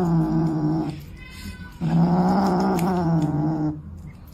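A pet animal yowling in long, drawn-out held calls: one stops about a second in, a second lasts about two seconds, and a third starts at the very end.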